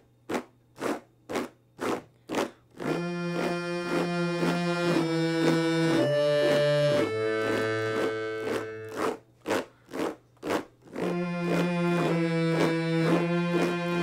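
Beltuna piano accordion: about five short rasping strokes, roughly two a second, then sustained bellows-driven chords that change a few times. Near the middle the strokes come back four times before the chords resume.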